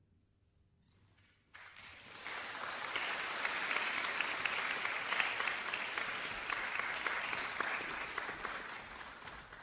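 A brief hush, then audience applause breaks out about a second and a half in, grows fuller, and begins to thin out near the end.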